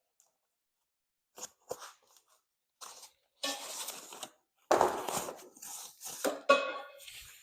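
Plastic packaging wrap being pulled and torn off, an irregular crinkling and rustling that grows busier and louder in the second half, with a sudden louder bump about halfway through.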